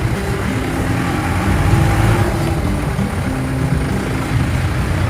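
Jeep engine running as the vehicle drives along, a steady low rumble.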